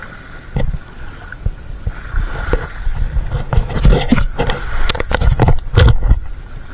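Rustling, slapping and knocking as freshly caught fish are handled and shifted on a plastic tarp, close to the microphone. A single knock about half a second in, then a dense, louder run of slaps and knocks from about two seconds in until just past six.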